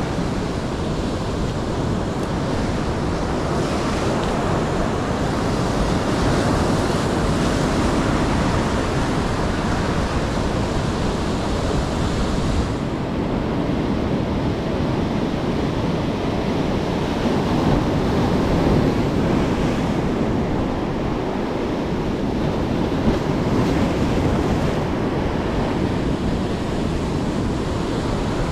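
Rough ocean surf breaking and washing over rocky shore ledges: a steady, dense rush of white water.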